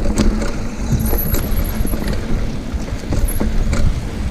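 Schwinn Axum mountain bike rolling over a dirt trail: a continuous low rumble of tyres and wind on the microphone, with frequent clicks and rattles from the bike over bumps.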